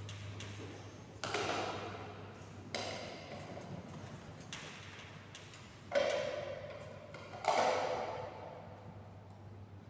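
Four sharp knocks about one and a half seconds apart, each ringing briefly as it fades, over a steady low hum.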